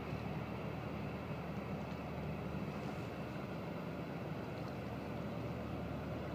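Steady low rumble of a distant fast ferry's engines as it pulls away from port.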